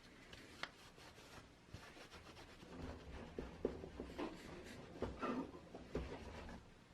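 Light handling noises: scattered small clicks and rubbing, busier in the second half, stopping shortly before the end.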